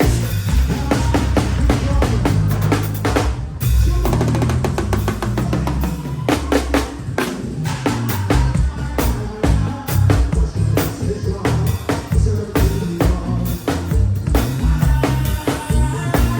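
Music driven by a drum kit: busy kick-drum pedal work with snare and rimshot hits over a deep, steady bass line. There is a brief break about three and a half seconds in.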